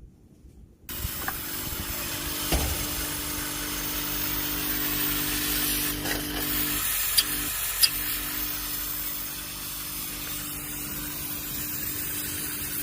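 New R22 compressor in a Mitsubishi split AC outdoor unit test-run empty, with no refrigerant charge, after being brazed in: a steady hum with a hiss that starts about a second in, with two sharp clicks about half a second apart a little past the middle.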